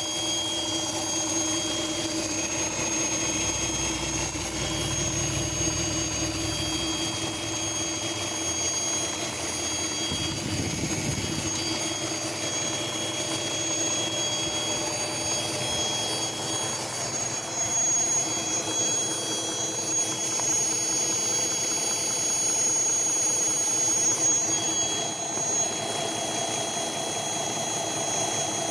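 Car engine idling steadily with a constant high-pitched whine over the engine hum. This is the sound the owner suspects may be a vacuum leak.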